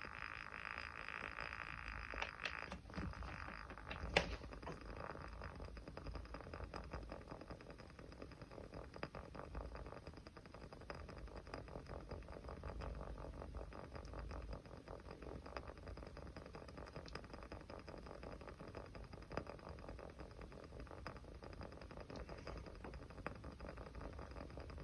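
Small fire crackling softly and continuously, with fine rapid ticks and a sharper pop about four seconds in. A light hiss runs through the first couple of seconds.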